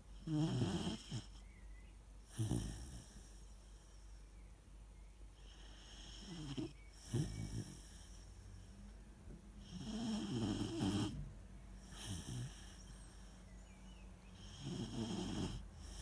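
Weimaraner puppy snoring in its sleep: slow, rough snoring breaths, often in pairs, every four to five seconds.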